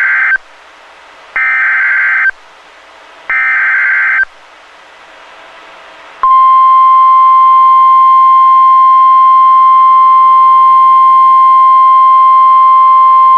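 NOAA Weather Radio SAME (Specific Area Message Encoding) data bursts: the end of one, then two more of about a second each, two seconds apart. They carry the coded header of a Fire Warning for Shawnee County, Kansas. About six seconds in, the steady 1050 Hz Weather Radio warning alarm tone starts and holds.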